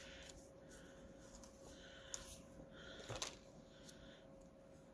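Faint rustling of paper tags being handled and sorted, with a couple of light taps about two and three seconds in, over a faint steady hum.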